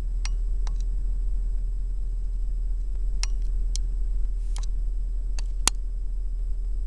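Scattered small sharp clicks, about nine of them, as camcorder buttons are pressed while trying to switch the camera off. Underneath runs a steady low hum.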